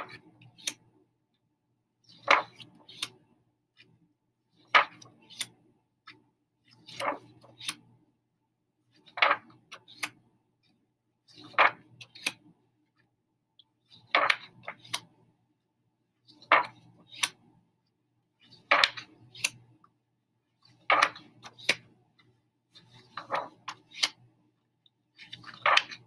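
Short bursts of clicking and tapping, each a few sharp clicks, repeating evenly about every two and a half seconds.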